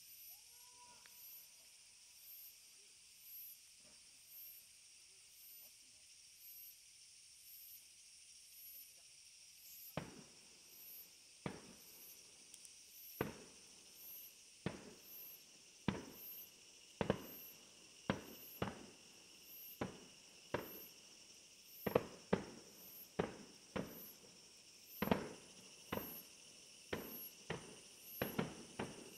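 Fireworks shells bursting one after another. A sharp bang every second or so starts about ten seconds in and grows louder and more frequent, over a steady chirring of insects.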